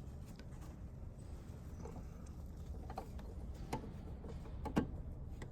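Faint scattered clicks and taps of a headlight bulb's plastic base being lined up and pushed into the bulb socket of a car headlight housing. The most distinct click comes near the end.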